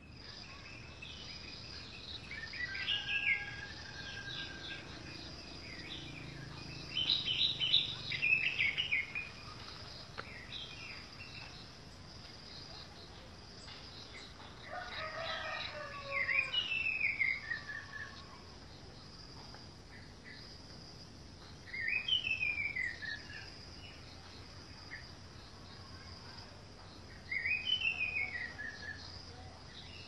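Orange-headed thrush singing: short whistled phrases of arched, falling notes, repeated every few seconds, the loudest around eight seconds in. A steady high insect drone runs underneath.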